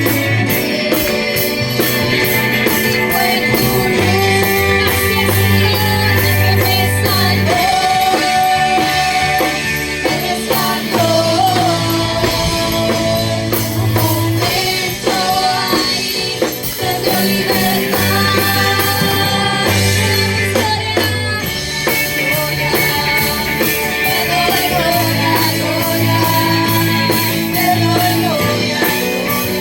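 Worship song playing: singing over a band with a bass line and a steady beat.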